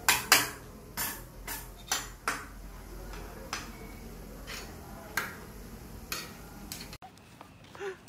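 Clinking and clatter of ceramic dishes and metal cutlery, a dozen or so sharp clinks over a low room hum, the loudest just after the start; it stops abruptly at about seven seconds.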